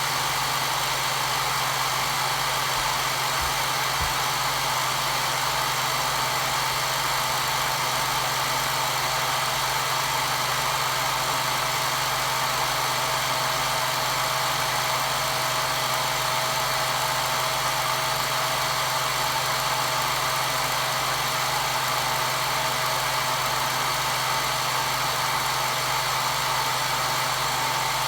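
Hair dryer running steadily: an unchanging airy hiss with a low motor hum and a faint whine underneath.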